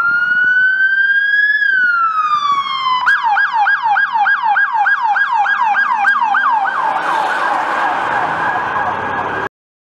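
Police SUV's electronic siren: a slow wail rising and then falling, switching to a fast yelp of about three sweeps a second, which turns into a quicker, harsher warble before cutting off suddenly near the end.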